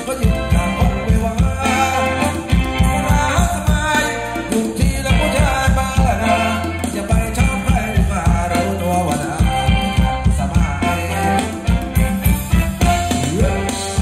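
Live band playing retro Thai ramwong dance music, with a steady drum-and-bass beat, a shaker and melodic lines over it.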